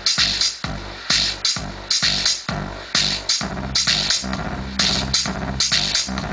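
Electronic dance music with a drum-machine beat, played loud through a car sound system; a heavy sustained bass line comes in about three and a half seconds in.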